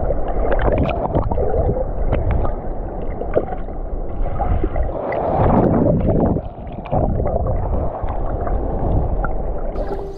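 Wind buffeting the microphone, a rough rumbling rush, with water washing beneath it and a brief drop in level a little past the middle.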